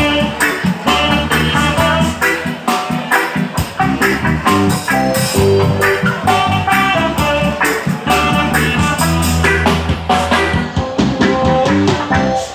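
Roots reggae band playing an instrumental passage: guitar and bass over a drum kit beat, with no singing.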